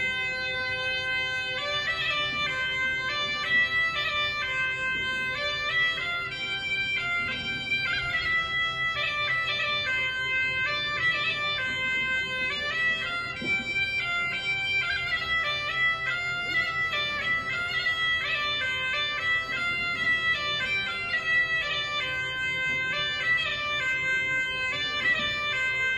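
Bagpipe playing a melody over a steady drone.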